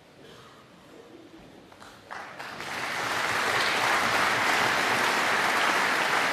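Audience applauding a shot, setting in about two seconds in, quickly swelling and then holding steady.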